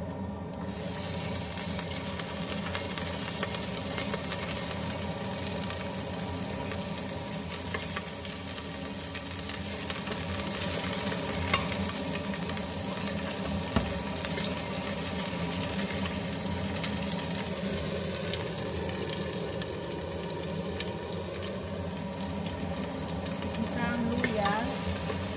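Ginger slices frying in a stainless steel pot, dropped in about half a second in so that a steady sizzle starts at once. A wooden spatula stirs them as they fry.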